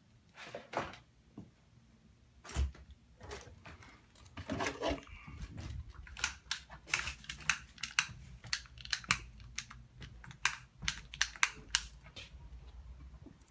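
A run of irregular sharp clicks and taps in a small room, sparse at first with a brief scraping noise, then quicker at about two or three a second.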